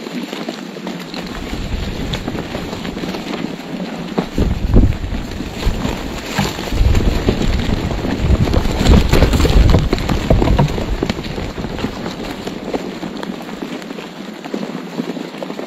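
Vultures scrambling over a carcass at close range: a continuous rustle of flapping wings and scuffling in dry grass, with louder, deeper buffeting about four seconds in and again from about seven to ten seconds.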